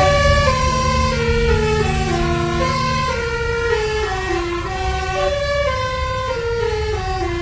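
Bus telolet horn playing a melody of short stepped notes that fall in pitch, the descending phrase repeating about three times. A low steady drone underneath stops about three seconds in, over a constant low rumble.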